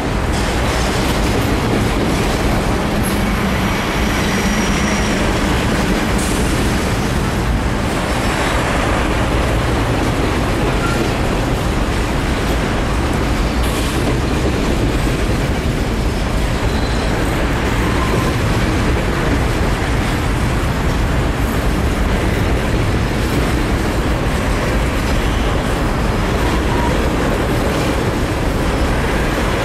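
A freight train's cars, autoracks and then covered hoppers, rolling steadily across a railroad bridge: continuous steel-wheel-on-rail noise.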